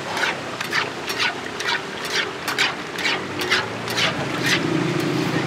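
Martabak frying in shallow oil on a wide flat iron pan: a steady sizzle with short sharp hisses about twice a second as a ladle splashes hot oil over it. A low hum comes up near the end.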